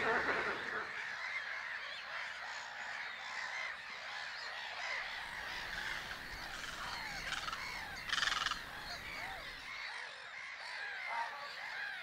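A large mixed flock of gulls and waterfowl calling, many cries and honks overlapping at once, with one louder harsh call about eight seconds in.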